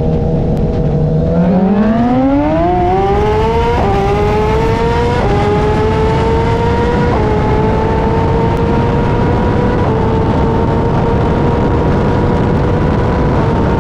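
Sport bike engine pulled hard in a roll race. Its pitch climbs steeply, drops abruptly at three quick upshifts about four, five and seven seconds in, then holds at high revs. A constant rush of wind noise runs underneath.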